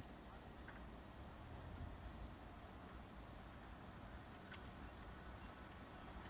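Faint, steady high-pitched chirring of insects, likely crickets, over a low rumble.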